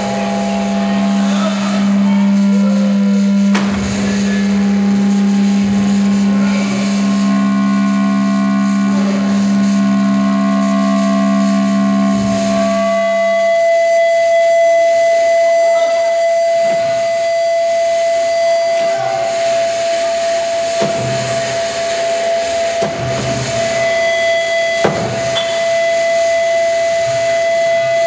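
Acoustic feedback between microphones and the PA in a harsh-noise performance: a loud, steady low drone with layered tones above it cuts off about halfway through, leaving a sustained higher ringing whine with a fainter, higher tone over it. A few sharp knocks break in now and then.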